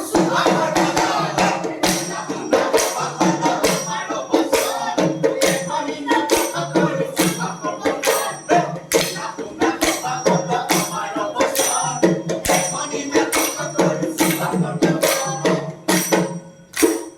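Music with a steady beat of sharp percussion strikes and high jingles, like a tambourine, over a low stepping melody.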